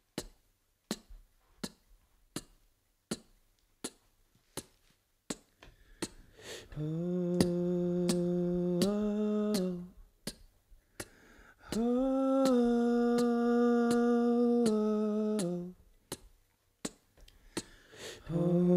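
Background music: sharp snaps or clicks at a slow, even beat, about one every three-quarters of a second. Twice, a voice joins with long held hummed or sung notes that step in pitch, from about seven to ten seconds in and from about twelve to fifteen seconds in.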